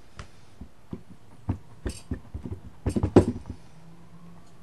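A stamp being pressed and tapped onto an ink pad in its plastic case to ink it: a run of light taps and clicks, busiest and loudest about three seconds in.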